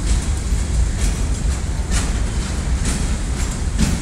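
Goods train's wagons rolling past on the rails: a steady low rumble with irregular sharp clacks of wheels over rail joints.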